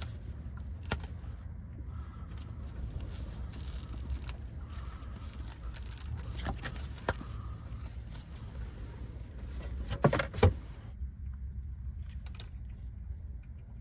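Cat toys being batted about by cats: scattered light taps and rattles, then a cluster of loud knocks about ten seconds in, over a steady low hum.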